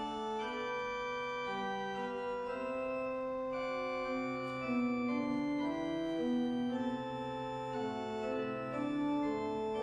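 Church organ playing a postlude in sustained, full chords that move from one to the next every second or so.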